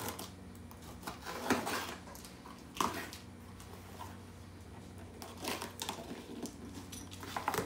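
Utility knife slitting packing tape on a cardboard box, then the box flaps being pulled open: a few irregular scrapes and rustles over a steady low hum.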